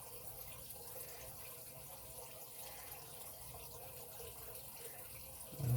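Faint, steady low hum and hiss of background room noise, with no distinct pick clicks heard. A brief hummed voice sound comes near the end.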